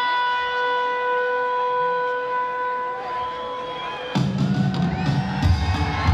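A single long held call, steady in pitch, dies away about four seconds in. Then the crowd breaks out in loud cheering and whoops.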